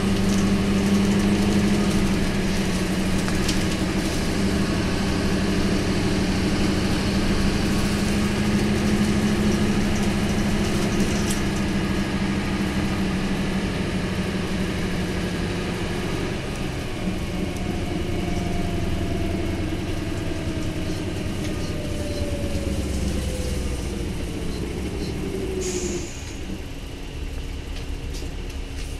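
Isuzu Cubic KC-LV280L bus's V8 diesel engine running steadily under way. From about two-thirds of the way in, a whine glides down in pitch for about nine seconds, and then the sound drops abruptly near the end.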